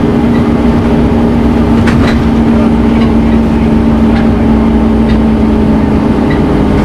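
Scania N230UD Omnicity bus's nine-litre five-cylinder diesel running steadily, with a constant droning tone over the engine rumble.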